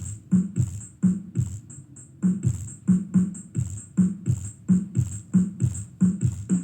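Electronic music played through a speaker woofer. Its deep kick drum hits about three times a second, each dropping in pitch, with a crisp high tick on the beats.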